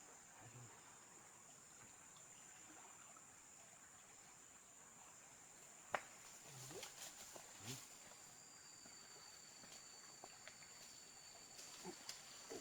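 Faint, steady high-pitched drone of insects, with a second, lower insect tone joining about eight seconds in. A single sharp click sounds about six seconds in.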